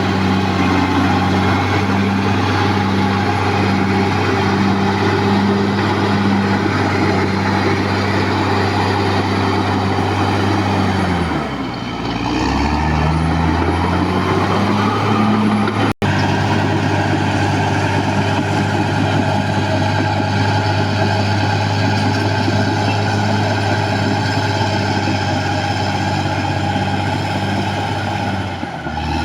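Caterpillar D6R XL bulldozer's diesel engine running steadily under load. About eleven seconds in, the engine speed drops and then climbs back, and it drops again near the end. There is a split-second break in the sound about halfway through.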